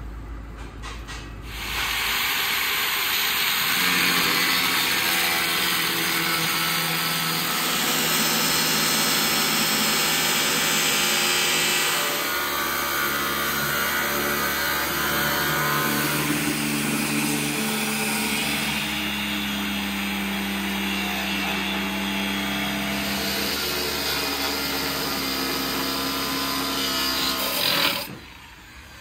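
A power tool running under load on metal, starting about two seconds in and stopping shortly before the end, its pitch shifting a few times as the load changes.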